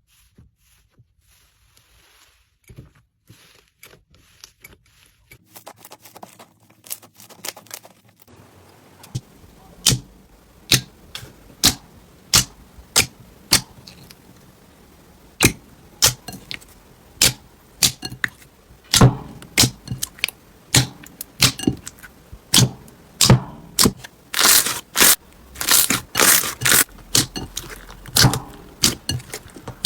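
Slime being squeezed and worked by hand, giving sharp pops and crackles about once or twice a second, with a denser, louder run of crackling near the end. It is very quiet for the first few seconds.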